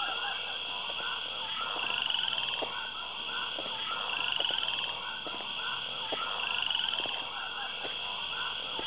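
Frogs croaking in a steady chorus of repeated short calls over a constant high-pitched buzz that swells and fades a few times.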